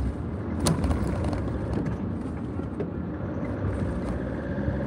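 Road and engine noise inside a car driving through city traffic: a steady low rumble with a single sharp click about two-thirds of a second in. Near the end a steady engine hum joins as a box truck runs alongside.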